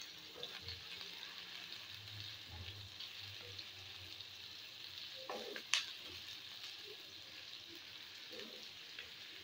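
Sliced onions frying in hot oil in a pan, a steady quiet sizzle, stirred with a wooden spoon. One sharp click a little past halfway.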